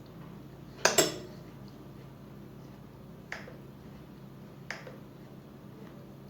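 Kitchenware being handled: a sharp double clack about a second in, then two fainter clicks a couple of seconds apart.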